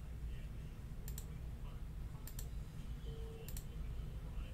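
Computer mouse clicks, each a quick press-and-release double tick, coming about once every 1.2 seconds as the button on an online list randomizer is clicked over and over to reshuffle a list. There is a steady low hum underneath.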